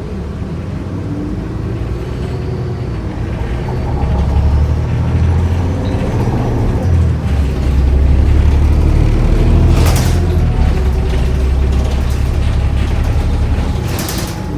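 Inside a New Flyer D40LF diesel city bus under way: a low engine and drivetrain drone that grows louder about four seconds in as the bus pulls harder, with a faint whine rising in pitch and a sharp rattle of the bus body about ten seconds in and again near the end. The transmission is one the rider calls bad.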